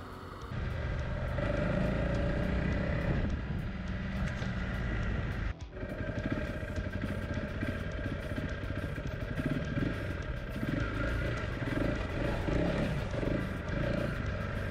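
Adventure motorcycle riding on a dirt track: engine running under way with rumbling off-road and wind noise, dipping briefly about five and a half seconds in.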